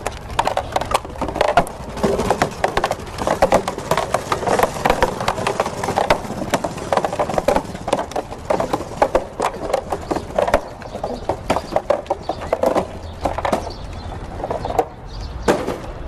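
Homemade wooden monocycle rolling on pavement: its small wooden drive gear meshes with the teeth inside the big wooden rim, giving a rapid, uneven clacking of wood on wood.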